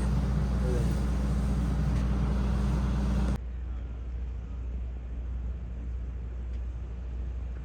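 Steady low rumble and road noise of a vehicle driving, heard from inside. It drops abruptly to a quieter level about three and a half seconds in and then carries on steadily.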